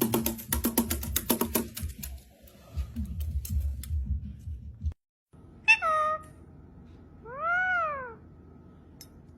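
Rapid clicking with music for about the first two seconds, then after a sudden cut two meow-like calls: a short falling one about six seconds in, and a longer one that rises and falls near eight seconds.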